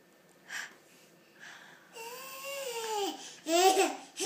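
Seven-month-old baby vocalizing: a faint breath or two, then from about two seconds in a long, high, wavering 'aah', and a louder short falling cry-like sound near the end, between babble and fussing.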